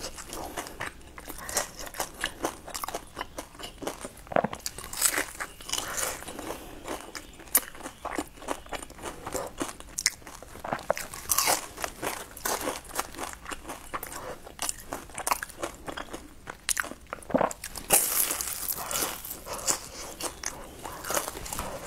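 Close-miked crunching and chewing of crispy deep-fried pastry, bite after bite, with sharp crackles from the crust. A loud burst of crunching comes about eighteen seconds in.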